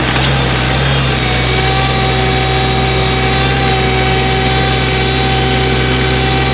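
Excavator's diesel engine running steadily, with a constant low hum and a higher whine above it.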